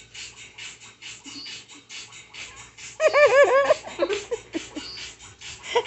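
A burst of high-pitched 'ha-ha-ha' laughter about three seconds in, with shorter laughs after it, over a faint, quick, even tapping beat.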